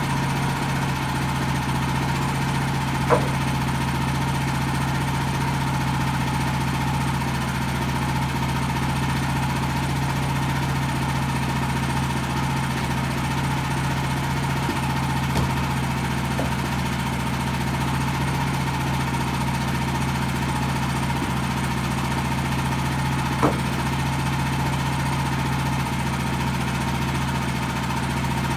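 Woodland Mills HM130 portable band sawmill's gas engine running steadily, with a steady high whine above it and a few brief sharp ticks, about three seconds in, halfway through and near the end.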